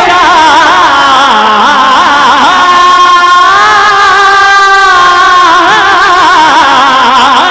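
A man singing a manqabat unaccompanied into a microphone, drawing out one syllable in a long, ornamented melisma. His pitch wavers and trills, then holds steadier for a couple of seconds in the middle.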